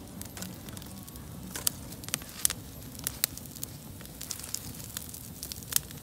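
Wood campfire of split kindling catching, crackling with scattered sharp pops.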